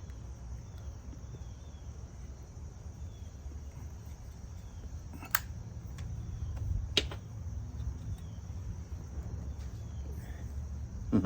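Outdoor background with a steady low rumble and faint, short, high chirps repeating throughout. Two sharp clicks, about five and seven seconds in.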